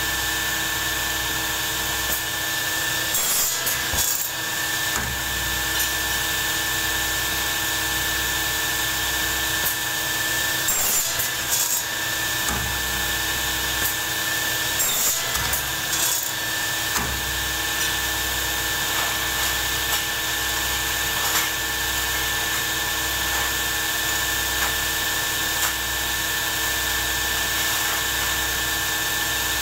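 A workshop machine running with a steady whine, with three short spells of louder, rougher working noise as the operator works it, about three, ten and fifteen seconds in.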